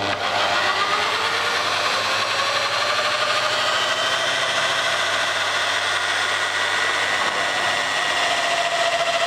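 Electric hand drill mounted in a homemade plywood drill press, switched on suddenly and running at a steady speed with a spade bit. Near the end the motor's tone drops slightly as the bit starts cutting into the wood.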